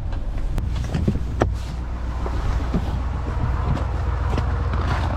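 A vehicle's engine running steadily with a low hum, with a few sharp clicks and knocks over it.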